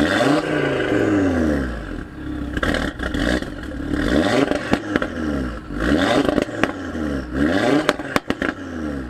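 2017 Audi TT RS's turbocharged five-cylinder engine, revved through its sports exhaust while standing still: about five rev blips, each rising and falling, with sharp pops and cracks as the revs drop.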